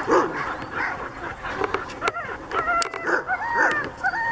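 Sled dogs barking and yipping over and over, with a drawn-out high whine that begins near the end.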